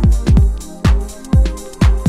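Early-1990s electronic house music: a deep, steady kick drum about twice a second under sustained synth tones.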